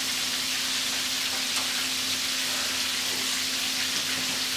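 Frog legs frying in hot grease: a steady sizzle, with a faint low hum running under it.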